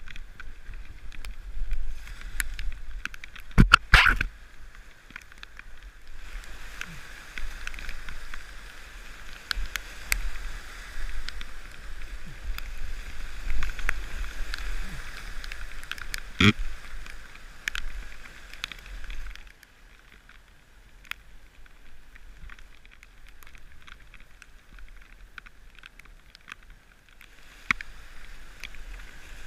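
Whitewater rushing and splashing around a kayak as it runs a rapid, with paddle strokes in the water. Two loud, sharp knocks stand out, one about four seconds in and another about sixteen seconds in, and the water sound drops lower for the last third.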